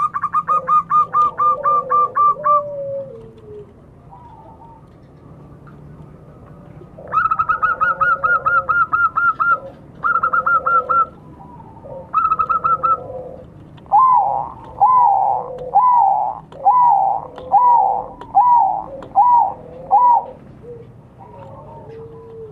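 Zebra doves (perkutut) cooing: several bursts of rapid staccato coos, about four to five notes a second, with quiet pauses between. Past the middle comes a slower run of eight lower coos, each ending in an upward flick.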